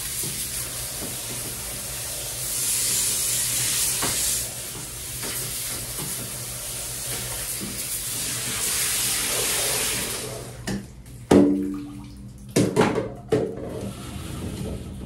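Water running into a bathtub, a steady splashing rush that stops about ten seconds in. A few sharp knocks follow near the end.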